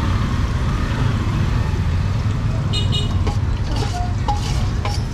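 Steady low engine rumble of road traffic, with scattered clatter and short high chirps over it in the second half.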